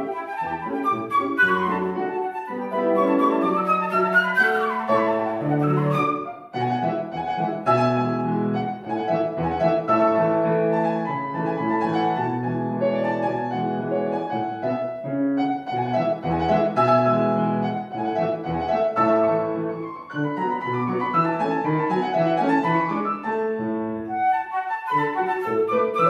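Classical concert flute and Petrof grand piano playing together, the flute in quick runs over the piano. After about six seconds the piano carries on alone with chords, and the flute comes back near the end.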